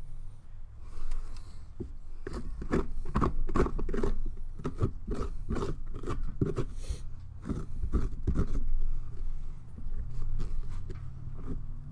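The inside of a pumpkin being scraped out, close to the microphone: quick, crunchy scraping strokes against the wet flesh and rind, about two or three a second.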